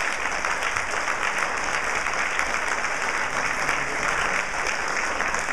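An audience applauding: many hands clapping steadily.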